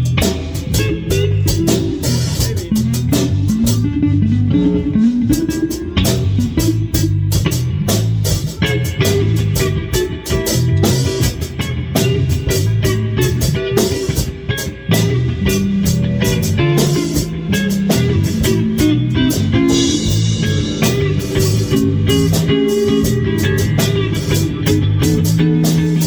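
Live instrumental band jam: a drum kit hitting steadily under electric guitar and bass guitar.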